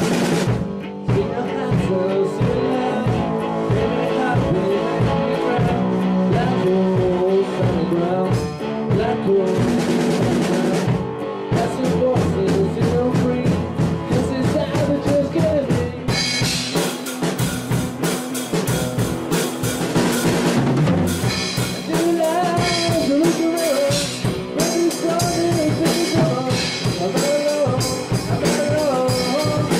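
Rock band rehearsing live: an electric guitar plays a melodic line over a drum kit beat with bass drum and snare. The playing gets fuller and brighter about halfway through.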